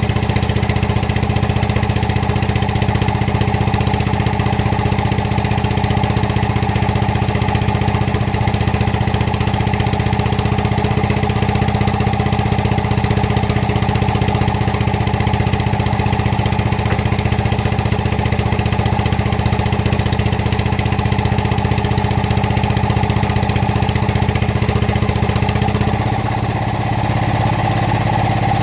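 Excavator's diesel engine idling steadily with a low, even hum; about 26 seconds in the hum dips briefly and its lowest part shifts, then it runs on.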